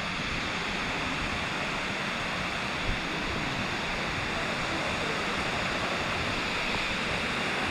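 Steady rush of water from the Kuang Si waterfall, an even noise with no breaks.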